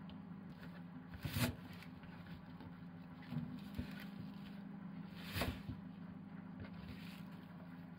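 Kitchen knife cutting cabbage and garlic chives on a wooden cutting board: a few separate knocks of the blade on the board, the loudest about a second and a half in and again about five and a half seconds in, over a steady low hum.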